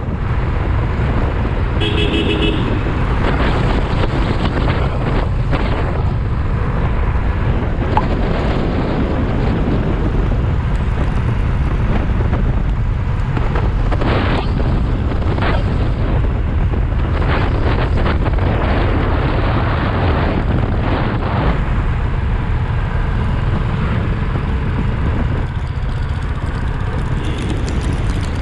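Steady low rumble of a motorcycle on the move, its engine and the wind over the microphone. A vehicle horn beeps once, briefly, about two seconds in.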